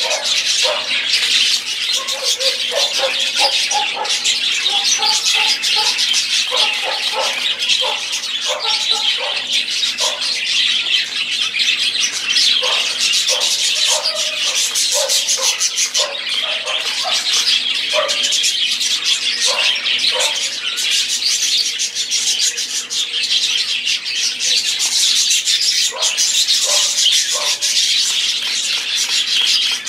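Budgerigars chattering and warbling without pause, a dense stream of high chirps and squawks, with clusters of lower notes now and then.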